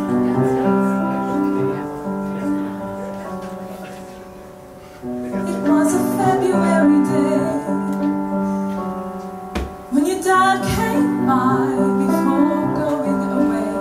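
Piano sound from a Roland stage keyboard playing slow, held chords as the song's accompaniment. A woman's singing voice comes in over it a little before the middle and again later.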